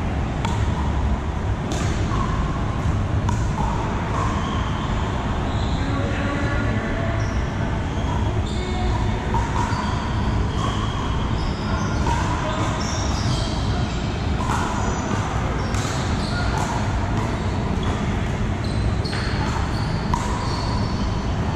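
Pickleball paddles hitting a hard plastic ball during a rally: sharp pocks at irregular intervals, echoing in a large hall. Under it are the chatter and ball hits from play on many neighbouring courts, over a steady low rumble.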